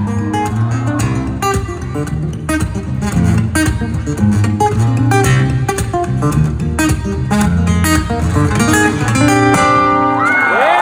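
Acoustic guitar played live as a solo: quick plucked notes over a picked bass line with a strummed feel. About ten seconds in, notes slide upward into a ringing held chord as the song ends.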